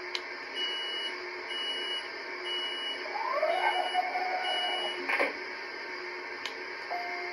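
A Lionel LionChief LIRR M7 model train's onboard sound system playing a run of five high beeps about a second apart, with a short rising tone partway through and a clunk just after the last beep.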